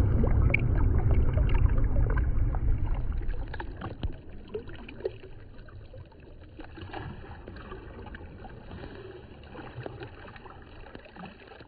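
Choppy sea water sloshing around a phone held at the surface: a loud low rumbling wash for the first three seconds or so, then quieter lapping with small splashes and drips.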